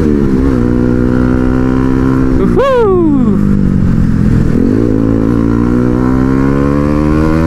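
Bajaj Pulsar NS200's single-cylinder engine running steadily under way, with a sharp rev that climbs and drops quickly about two and a half seconds in. Engine speed briefly dips and picks up again around four and a half seconds in.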